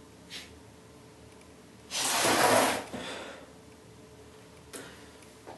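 A man sighs once, a loud breath out lasting about a second, starting about two seconds in.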